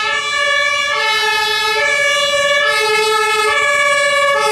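German two-tone emergency-vehicle siren (Martinshorn), loud, switching back and forth between a low and a high note about once a second.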